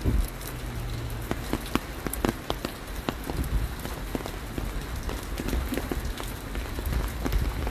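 Steady rain falling, with many sharp ticks of single drops striking close by, over a low rumble.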